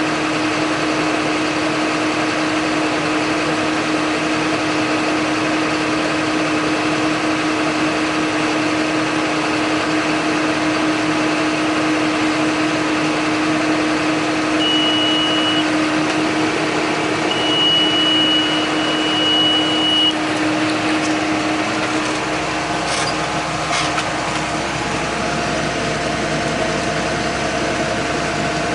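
John Deere 8100 tractor's diesel engine running steadily under baling work. A high electronic beep sounds once briefly, then again for a couple of seconds about two-thirds through. The engine note changes shortly after, with a couple of clicks.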